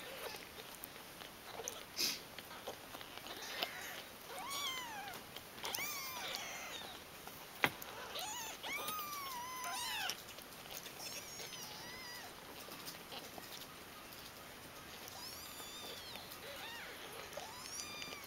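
Ten-day-old kittens mewing: thin, high-pitched cries that rise and fall in pitch, a cluster of them about four to ten seconds in and a few more near the end. A single sharp click sounds about midway.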